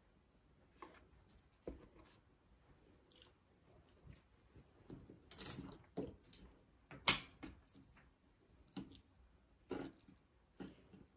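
Irregular soft crunches and crackles from the crust of a stollen, with the loudest about seven seconds in.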